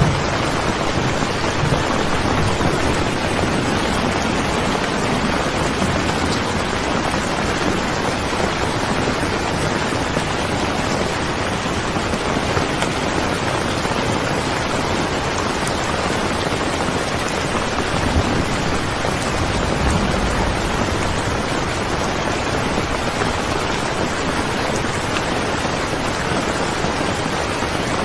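Steady rain falling in a dense, even hiss, with a couple of faint low thumps about two-thirds of the way through.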